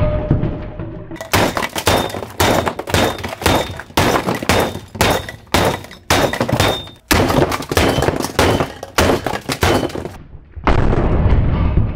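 A hammer smashing a plastic KerPlunk toy: rapid sharp blows, several a second, with plastic cracking and clattering from about a second in until near the end. A heavy thud rings out at the start, and another heavy low thud comes near the end.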